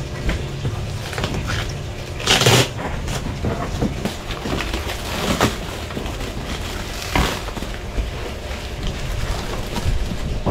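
Clear plastic stretch wrap crinkling and rustling in short bursts as it is pulled and torn off a cardboard parcel, the loudest crackle about two and a half seconds in.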